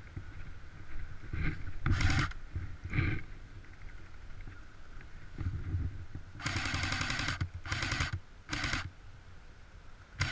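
Airsoft gun firing in bursts: a short burst about two seconds in and another about a second later, then a longer burst of about a second, followed by two short ones.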